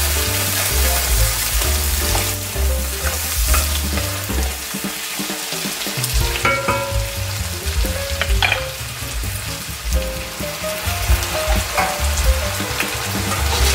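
Diced potatoes, green peppers and onion sizzling in oil in an enamelled cast-iron pot, stirred with a wooden spoon that scrapes the bottom of the pot now and then.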